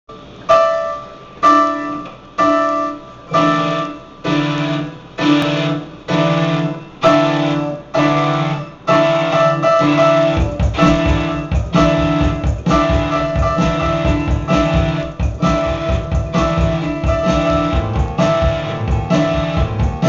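Live band music: a keyboard strikes a repeated chord about once a second, each one fading away. About ten seconds in, bass and drums join and the music becomes continuous and fuller.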